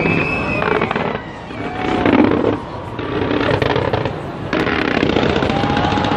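Large fireworks display going off in quick succession: rapid crackling bangs that ebb and surge several times.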